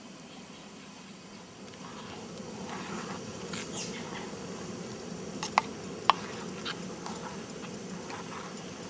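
Metal spoon stirring and scraping runny omelet in a small metal camp pot, with two sharp clinks of spoon on pot about halfway through, over a steady low hum from the lit canister camp stove.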